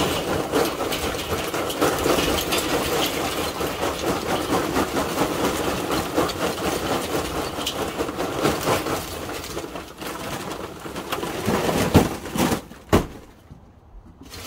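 B&B oak lump charcoal pouring from a paper bag into the steel bowl of a Weber Smokey Mountain smoker: a steady clatter of lumps tumbling onto the charcoal grate and each other. It eases off after about ten seconds, with a few sharper knocks near the end as the pile settles.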